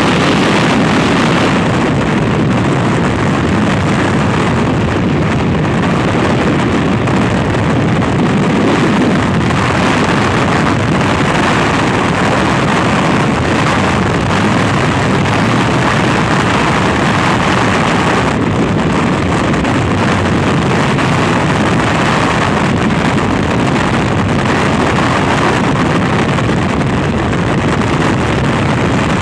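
Freefall wind: air rushing hard over the camera's microphone as it falls alongside a tandem skydiving pair under their drogue, a loud, steady rush of noise.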